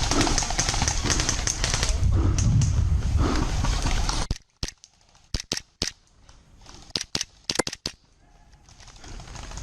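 Airsoft guns firing: for about four seconds, rapid shots over a loud rumbling noise. Then the background drops away suddenly and single sharp shots come in two short clusters.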